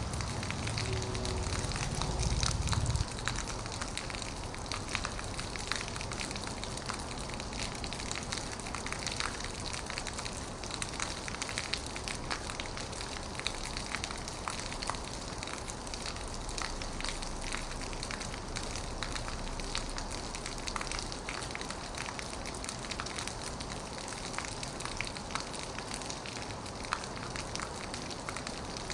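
Heavy rain falling on an old metal roof: a steady hiss thick with sharp drop ticks. A deep low rumble underneath cuts off suddenly about three seconds in.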